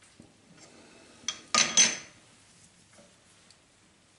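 Steel chuck key and four-jaw lathe chuck clinking: a small click, then a loud ringing metallic clatter of two quick strikes about a second and a half in, then a few faint ticks, as the jaws are adjusted to center a gear.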